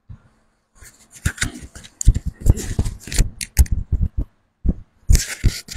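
Irregular rustling, scraping and knocking close to a microphone: handling noise with dull thuds among the rustles.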